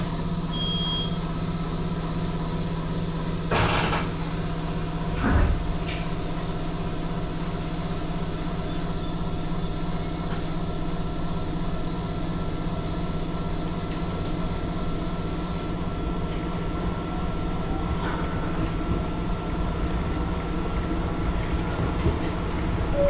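A 701-series electric train heard from inside the driver's cab as it pulls out of a station and runs along the line: a steady electrical hum over the running noise of the train, with two knocks about four and five seconds in.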